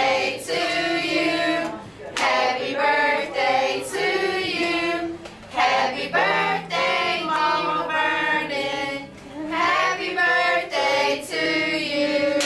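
A small group of women singing a birthday song together, unaccompanied, in phrases of a second or two with short breaths between.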